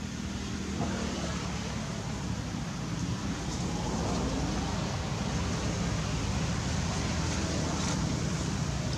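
Steady rushing outdoor background noise, heaviest in the low end, growing a little louder about a second in.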